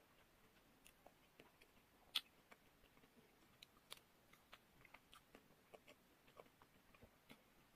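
Close-up chewing and biting of a chocolate-coated ice cream bar covered in nut pieces, heard as faint, irregular crackles and clicks of the chocolate shell, with one sharper crack about two seconds in.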